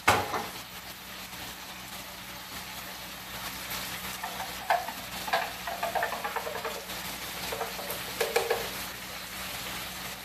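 Meat frying and sizzling in hot cast-iron pans, with a sharp clank right at the start and a run of clinking, scraping knocks of a spoon against pot and jar from about four to nine seconds in.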